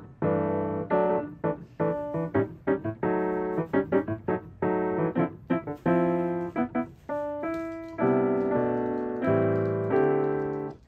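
Background piano music: a gentle run of single notes and chords that stops near the end.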